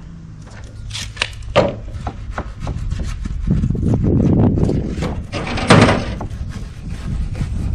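Wooden pieces being handled, with a few sharp knocks, a stretch of scraping and rubbing, and one louder knock near six seconds in.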